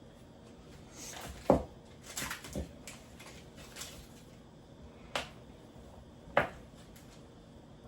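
Scattered knocks and clatter of kitchen utensils and dishes being handled, with a sharp knock about a second and a half in and two more near the end.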